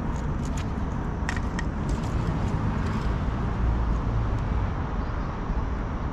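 Steady low outdoor rumble, like road traffic or wind, with a few light clicks in the first two seconds.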